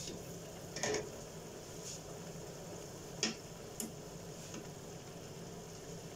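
Chicken adobo sizzling in a frying pan, with a clink of the glass pan lid about a second in, then a spatula stirring and knocking twice against the pan.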